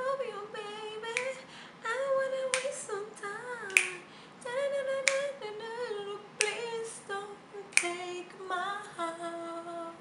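A woman singing unaccompanied, with held, wavering notes, while snapping her fingers to the beat about every second and a quarter.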